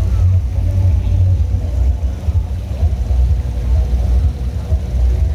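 A loud, steady low rumble that wavers in level, with faint thin tones higher up.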